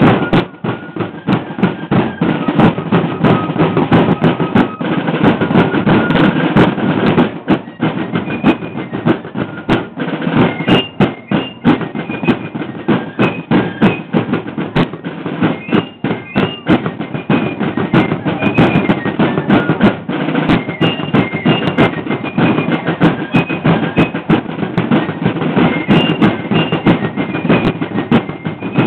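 Rope-tension field drums and a bass drum playing a steady cadence with rolls, and a high, thin melody of short notes above them.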